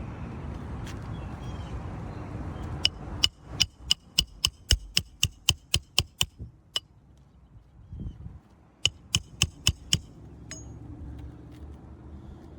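Hammer driving a roofing nail through a replacement asphalt shingle: a quick run of about a dozen sharp strikes, roughly four a second, each with a short metallic ring. After a pause comes a second, shorter run of strikes.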